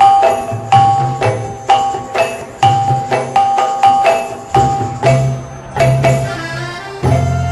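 Background music: struck, ringing bell-like notes over a steady beat, with a fuller bass line coming in about five seconds in.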